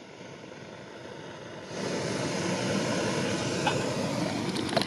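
Canister-gas backpacking stove burner lit and hissing, turned up about two seconds in to a loud, steady jet-like rush. A few light clicks near the end.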